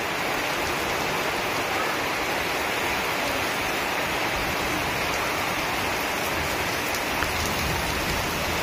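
Heavy rain pouring steadily on leaves and wet ground, a dense, even hiss of downpour.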